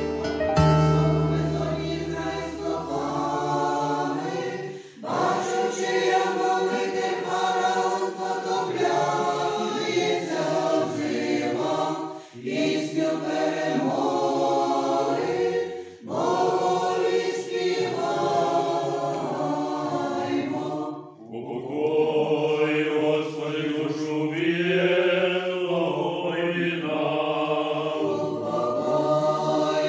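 A church choir singing an Orthodox funeral chant a cappella, in phrases separated by short pauses every few seconds. A soft instrumental melody fades out in the first few seconds.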